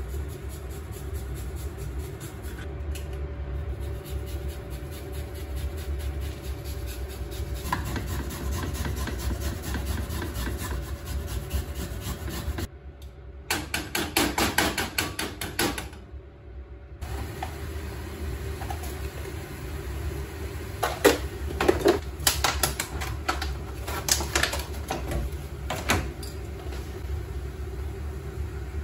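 Metal utensils clinking, tapping and scraping against a saucepan on a gas stove: a quick run of knocks partway through and a few sharper knocks later. A steady low hum lies underneath.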